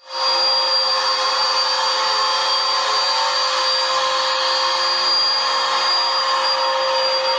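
Vacuum cleaner running steadily, a rush of air with a steady hum and a high whine; it comes in quickly right at the start.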